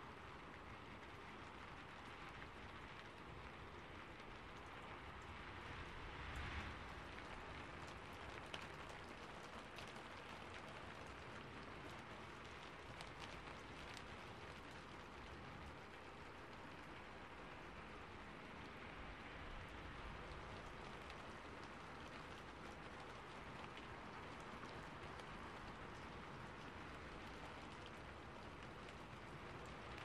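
Rain beating on a roof: a steady, quiet hiss of falling rain with many small drop ticks, swelling briefly about six seconds in.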